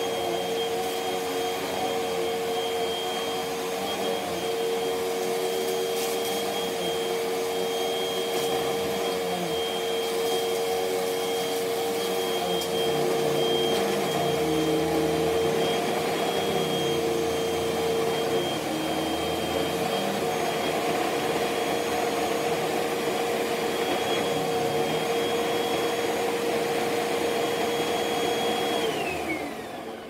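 Hoover upright vacuum cleaner running steadily, its motor whine holding one pitch. Near the end the motor winds down, the whine falling in pitch and fading.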